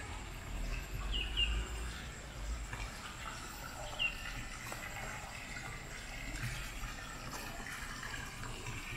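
Outdoor ambience: a steady low rumble and hiss, with a few short, high bird chirps about a second in and again around four seconds.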